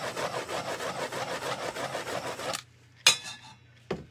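Handheld torch flame hissing with a fast flutter as it is played over the coated tumbler to warm it. It cuts off suddenly about two and a half seconds in, then come two sharp clicks.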